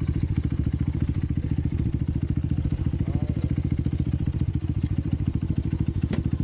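Small 100cc motorcycle engine idling with a steady, rapid even pulse. A single sharp click comes near the end.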